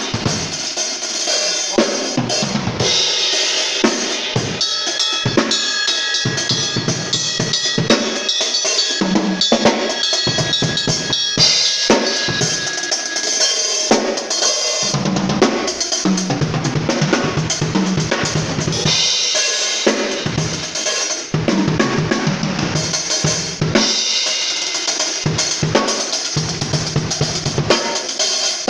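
Acoustic drum kit played continuously with sticks: fast strokes across the toms and snare over bass drum, with cymbals ringing out in several stretches.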